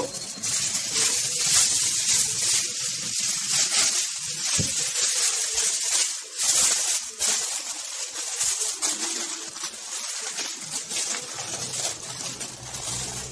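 Aluminium foil crinkling and crackling in a dense run of small crisp crackles as it is pressed and crimped down over a baking tray by hand.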